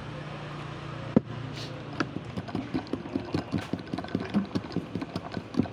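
One knock about a second in, then quick clinking of ice cubes against the glass of an iced drink as it is stirred with a straw, about four or five clinks a second.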